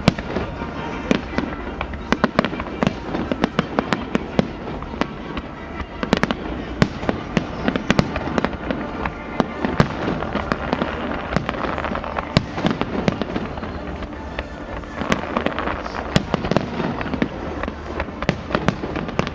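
Fireworks display: a dense, irregular run of bangs and crackling pops, many shells going off one after another.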